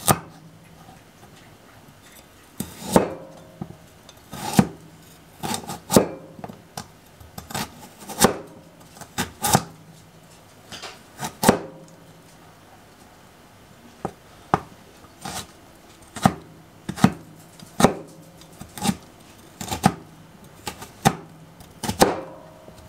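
Dishes and cutlery being washed by hand, knocking and clinking against each other in irregular sharp clatters every second or so, some with a brief ring.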